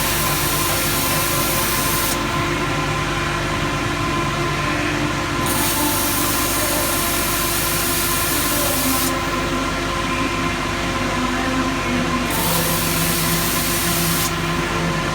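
Peddinghaus Peddiwriter CNC layout marking machine running steadily with a hum and several steady tones, while a loud hiss cuts in and out three times: on at the start for about two seconds, again for nearly four seconds around the middle, and for about two seconds near the end.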